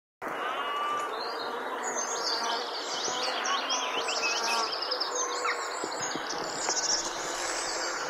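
A chorus of many birds singing and calling at once: dense overlapping chirps, rapid trills and short clear whistles.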